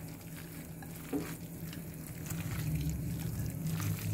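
Hands mixing cauliflower florets into a wet besan (gram flour) batter in a glass bowl, with a steady low hum underneath.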